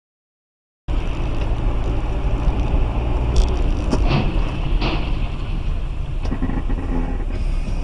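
Steady low rumble of a car's engine and tyres on a wet road, heard from inside the cabin. It starts abruptly about a second in, and a few sharp knocks come between about three and five seconds in.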